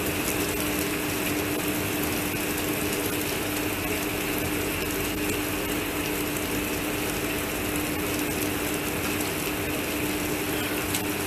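Heavy downpour with small hail: a dense, steady clatter of drops and hailstones on the platform and roofing, over a steady low hum.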